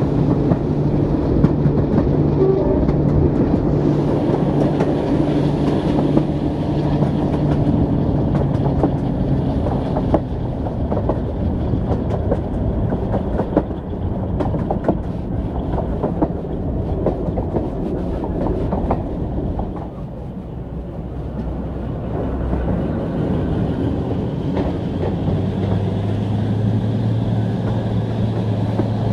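A Class 42 Warship diesel-hydraulic locomotive's Maybach engines running as it hauls the train, heard from a coach window, with coach wheels clicking over rail joints. The engine hum fades about a third of the way in while the wheel clicks take over. A lower engine note builds again near the end.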